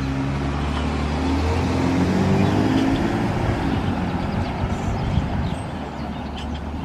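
A motor vehicle's engine passing close by, its pitch rising as it speeds up. It is loudest a couple of seconds in, then fades into steady road noise.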